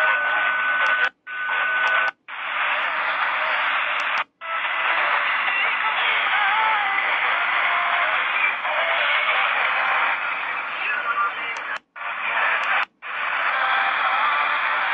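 HanRongDa HRD-747 receiver's loudspeaker playing AM shortwave reception: hissing static with faint, wavering voices or music and a steady whistle in the first two seconds. The sound cuts out briefly five times as the radio steps from one memory preset or frequency to the next.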